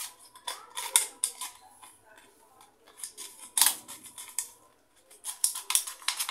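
Small metal parts and tools clinking and rattling against each other in quick irregular clusters while a wheel bearing and spacer are handled and fitted into a motorcycle wheel hub.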